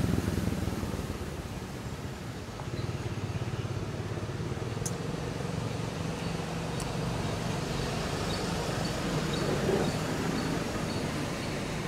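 Steady low drone of a motor vehicle's engine running, with a couple of faint sharp clicks partway through.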